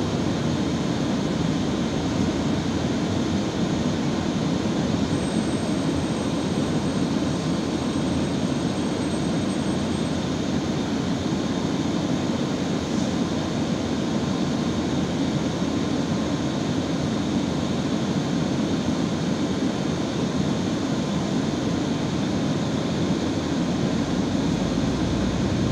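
Inside an Irisbus Citelis 12 m city bus on the move: steady engine and road noise at an even level, with a faint thin high whine for a few seconds near the start.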